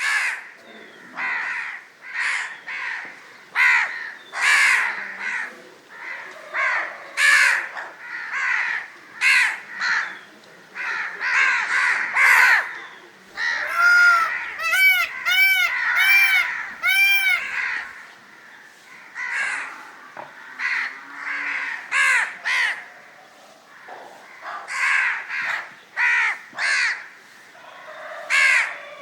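Crows cawing over and over, harsh calls coming every second or so and sometimes overlapping, as from more than one bird. Midway there is a quick run of about six clearer, arching calls.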